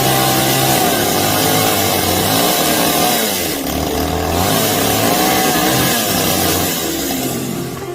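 A power saw running continuously, its pitch wavering up and down.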